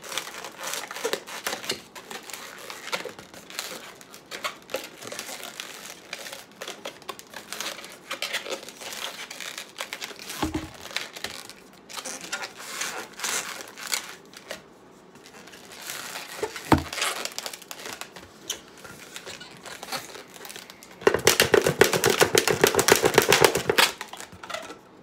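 Latex twisting balloon rubbing and squeaking in the hands as it is twisted and shaped into a balloon giraffe, with two brief dull thumps midway and a louder run of rapid squeaks for a few seconds near the end.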